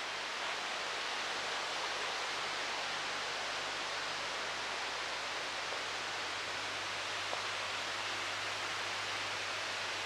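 Rushing water: a steady, even hiss.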